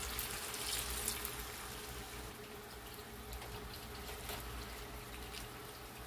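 Water poured into a pot of spiced beef tripe to boil it, splashing for about the first second and a half. Then fainter sloshing and scraping as the tripe is stirred through the liquid with a silicone spatula.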